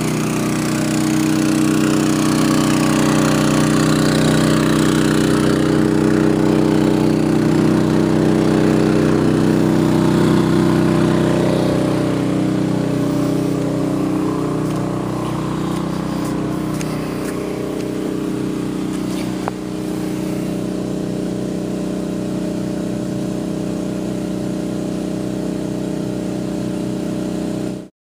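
Champion 2800-watt inverter generator running steadily under the load of an RV's rooftop air conditioner, heard from about 25 feet away. A constant engine hum that drops slightly in level about halfway through and cuts off suddenly at the end.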